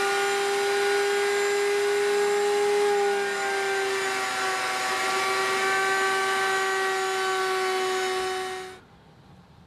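Table-mounted router running at speed, a steady high whine over a hiss, as a bearing-guided bit routes the edge of a wooden frame fed around it by hand. The pitch dips slightly about midway, and the sound cuts off abruptly near the end.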